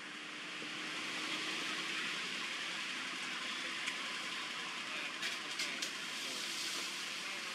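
Steady outdoor background hiss, with a few faint clicks about four and five seconds in.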